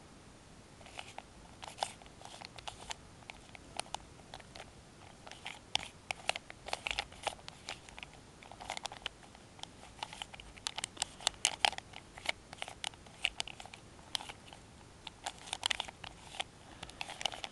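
Plastic 3x3x3 puzzle cube being turned rapidly by hand, its layers clicking and clattering in quick irregular bursts with short pauses between them.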